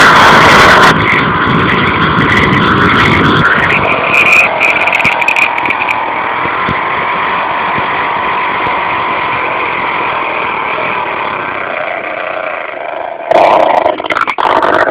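A motor vehicle engine running loudly and steadily, overloading the recording for about the first second and surging loud again about 13 seconds in.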